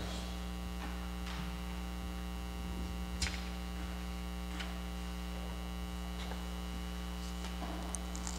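Steady electrical mains hum with a few faint handling clicks and paper rustles, the clearest click about three seconds in.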